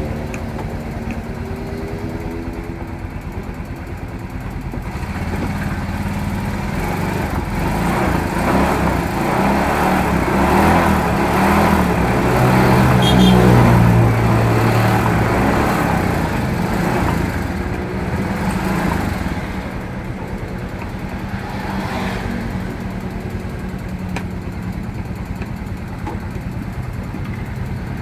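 Yamaha Soul GT 125 scooter's single-cylinder four-stroke engine running on a test with its cylinder head cover and exhaust freshly refitted. It idles, is brought up gradually on the throttle to a peak about halfway through, then settles back to idle.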